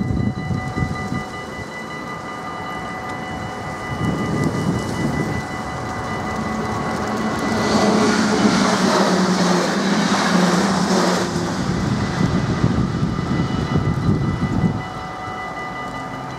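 Level-crossing warning bells ringing steadily as a Sprinter commuter train passes over the crossing. The train's wheels and running gear are loudest for a few seconds in the middle, then fade out shortly before the end.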